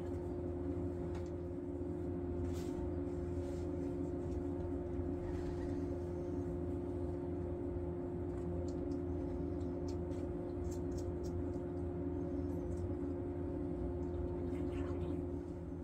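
A steady mechanical hum holding a constant tone, with a few faint clicks over it.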